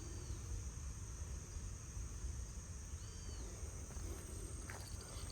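Steady high-pitched chirring of crickets or other insects over a low rumble, with two faint short whistles about three seconds apart.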